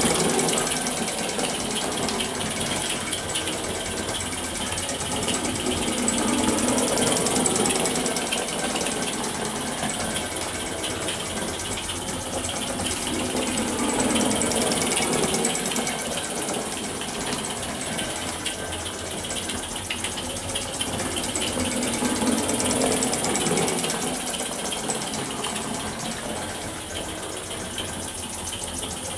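Toy live-steam traction engine running along, its small steam cylinder exhausting in a rapid, even chuff with a continuous hiss of steam. The sound swells and fades several times as the engine moves nearer and further.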